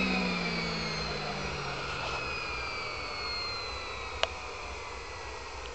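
Small 54 mm model jet turbine winding down: its whine falls steadily in pitch and fades. One sharp click about four seconds in.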